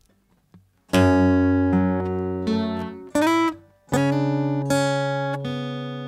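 Acoustic guitar fingerpicked slowly, single notes and two-string pairs plucked one at a time and left to ring. A short note about three seconds in glides up in pitch.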